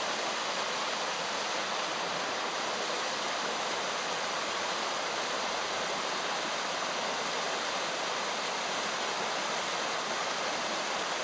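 A small waterfall pouring into a rock pool on a creek: a steady, even rush of falling water.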